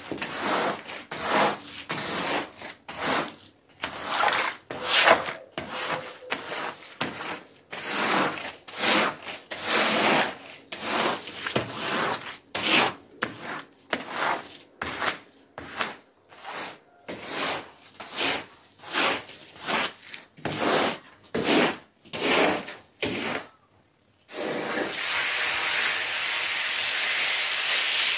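Squeegee on a pole scraping across a wet rug and floor in quick repeated strokes, about one or two a second, pushing off dirty soapy water. The strokes stop a little before the end and a steady hiss takes over.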